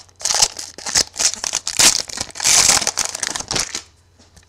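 Plastic trading-card pack wrapper crinkling in quick bursts as it is handled and opened, dying away about four seconds in.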